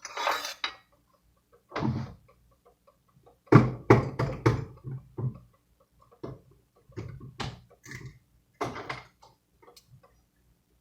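Kitchen utensils and containers clattering: a string of irregular clinks and knocks, with the busiest cluster a few seconds in.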